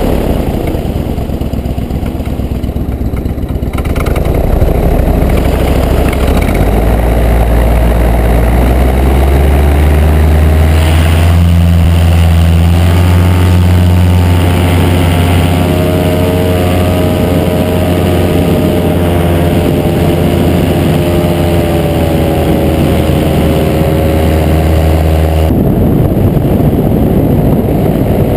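Flanders Silent Twin paramotor engine and propeller running. It is throttled up in steps over the first several seconds to a loud, steady high-power pitch for the take-off and climb, then throttled back sharply about three seconds before the end.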